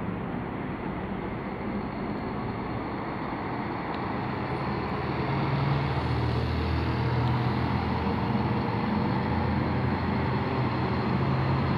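Diesel engine of a Scania-chassis Irizar i8 coach running as the coach drives past, its low engine note growing louder about five seconds in over steady road noise.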